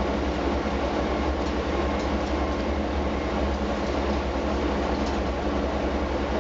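Heavy cleanup machinery running with a steady, low, pulsing drone, unchanged throughout.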